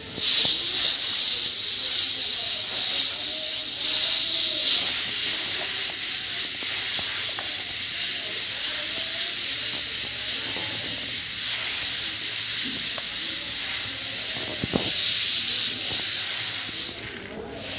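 Dry grain rustling as it is sifted in a steel sieve and raked by hand in a winnowing basket. The rustle is loudest for the first few seconds, then goes on steadier and softer.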